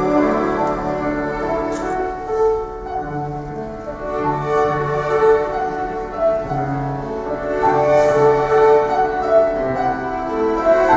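Live string ensemble playing an instrumental passage under a conductor, violins and other bowed strings holding notes that change about once a second.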